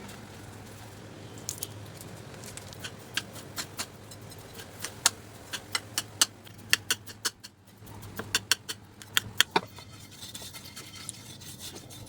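Kitchen preparation sounds: an irregular run of sharp clicks and taps, thickest in the middle, over a low steady hum.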